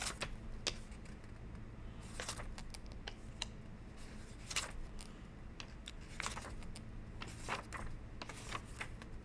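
Quiet, irregular light clicks and short rustles, a few seconds apart, over a low steady hum.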